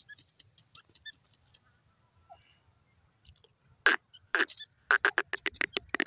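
Grey francolin calling: faint scattered chirps, then about two-thirds of the way in two loud single calls half a second apart, followed near the end by a fast run of loud calls at about six a second.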